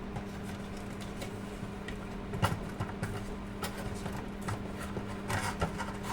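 Hands handling small unboxing accessories and their packaging: scattered light taps, clicks and rustles, over a steady low hum.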